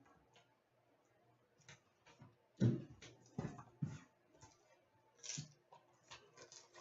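A trading-card box and its packaging being opened and handled: a series of faint, scattered clicks, taps and rustles, the sharpest about two and a half seconds in.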